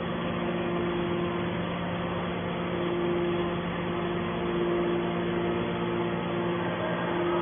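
Hydraulic scrap-metal baler running: a steady machine hum with a constant tone, without distinct knocks.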